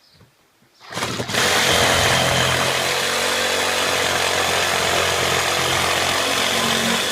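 BLACK+DECKER 20V MAX cordless reciprocating saw starting up about a second in and running steadily as it cuts through a piece of pallet wood.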